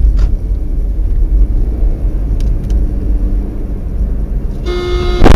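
A car on the road, heard from inside the cabin by a dash cam: a steady low rumble of engine and road noise. Near the end, a horn gives one short blast.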